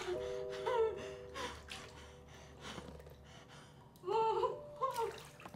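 A gagged woman's muffled whimpers and sharp gasping breaths, loudest about four seconds in, over a few held music notes.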